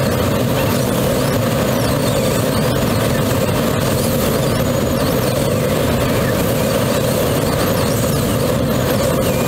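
Steady rush of airflow around a Grob G103 Twin Astir glider in soaring flight: an even wind noise without an engine, holding the same level throughout.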